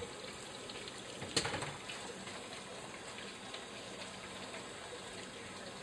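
Steady hiss of running water, with a single sharp knock about a second and a half in.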